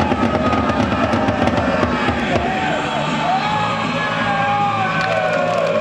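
A large crowd of football supporters singing a chant together, long held sung notes over the noise of the crowd, with a few sharp cracks in the first second.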